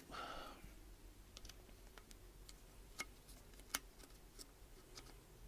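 Near silence in a small workshop room, broken by a few faint clicks and ticks, the clearest about three seconds in and again a moment later.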